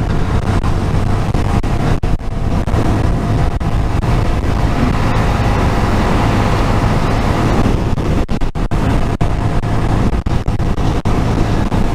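Honda MSX125SF's 125 cc single-cylinder four-stroke engine running steadily at a cruise of about 50 mph, with rushing wind noise on the onboard recording.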